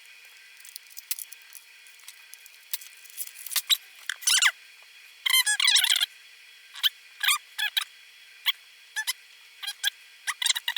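Irregular high-pitched, squeaky chirps with bending pitch, in short bursts with gaps, like a voice on fast-forwarded footage.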